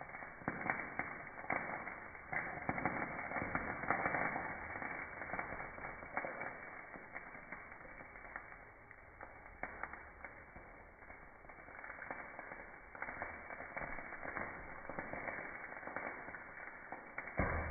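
Fire crackling and popping under a grill, with a steady sizzle from a chicken cooking over the embers on a can of cider. There is a thump near the end.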